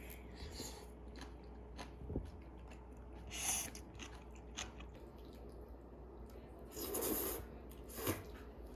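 A person eating and chewing, with scattered light clicks and a few louder noisy bursts, the loudest about seven seconds in.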